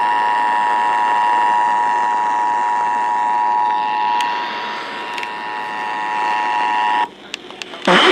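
Emergency Alert System attention signal: two steady tones sounded together as a loud, unwavering alarm, marking the start of an EAS test message. It cuts off suddenly about seven seconds in, followed by a few faint clicks.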